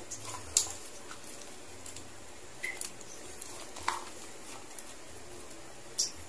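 Quiet handling sounds of chopped green onions being sprinkled by hand from a plastic bowl: a few light, sharp clicks and taps spread a second or two apart.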